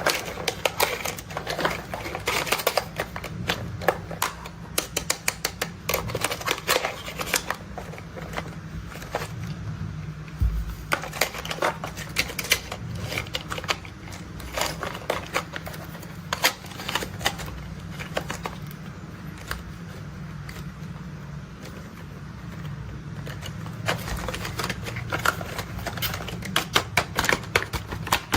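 Toy construction vehicles being handled: rapid, irregular clicking and clattering of plastic parts, thinning out in stretches, over a steady low hum.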